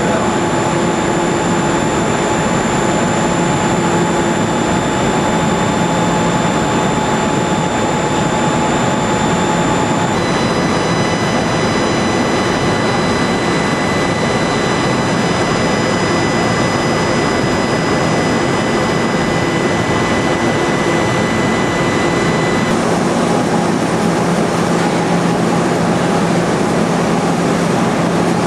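Electric motors and pumps of a fruit-processing line running together: a loud, steady hum and whir with several thin, steady whines on top. The whines change abruptly about ten seconds in and again about two-thirds of the way through.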